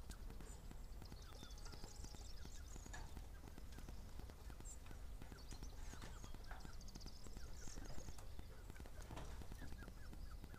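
Outdoor field ambience: a low wind rumble on the microphone, scattered faint clicks and knocks, and faint high chirping and trills that come and go.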